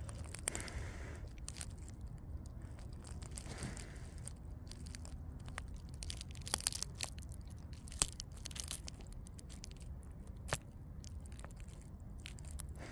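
Close handling noise: rustling and crackling over a steady low rumble, with a few sharp clicks, the loudest about eight seconds in.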